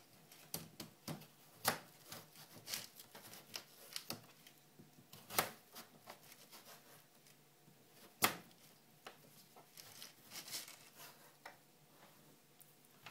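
Kitchen knife slicing raw peeled pumpkin on a plastic cutting board: irregular soft clicks and taps as the blade cuts through and meets the board, with a few louder knocks spread through.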